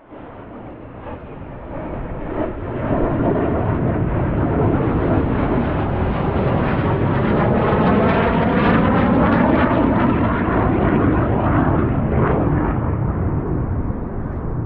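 An aircraft flying over: a loud rushing noise that builds over the first few seconds, holds through the middle with a sweeping, shifting tone, and eases off a little near the end.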